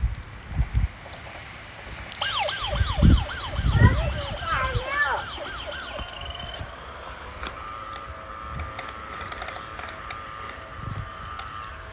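Electronic siren sound effect from a battery-powered toy police helicopter: a fast, warbling rise-and-fall siren from about two seconds in until about five seconds, followed by a steadier electronic tone. A few low thumps of the toy being handled come near the start.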